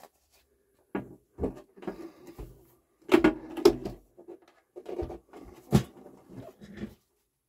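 Akai AP-001C turntable being handled and turned upside down on the workbench: a series of irregular knocks and clunks from its plinth, the loudest a little after three seconds in and again near six seconds.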